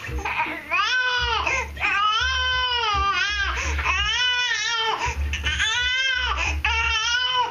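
Infant crying in repeated wails, about five of them, each rising and then falling in pitch, with short catches of breath between.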